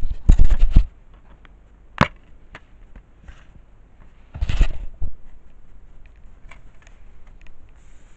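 Handling noise from a plastic DVD case being picked up and turned over: a burst of knocks and rubbing at the start, a single sharp click about two seconds in, and another knocking burst about four and a half seconds in.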